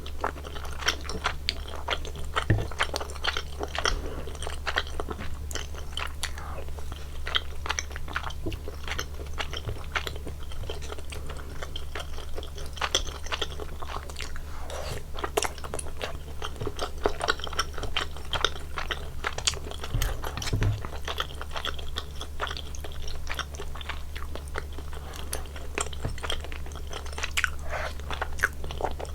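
Close-miked chewing of spicy soup tteokbokki rice cakes: a continuous stream of wet mouth clicks and smacks, with a steady low hum underneath.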